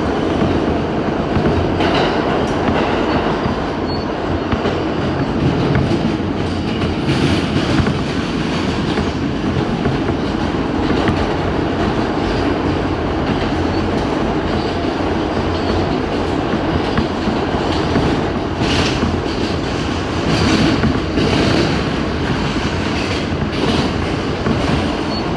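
New York City subway A express train running along the track: a steady loud rumble of wheels on rail, with occasional clacks as the wheels pass over rail joints, several of them close together near the end.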